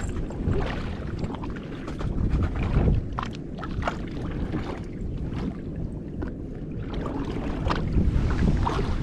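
Wind buffeting the microphone over water washing against a boat's hull at sea, with scattered short knocks and splashes.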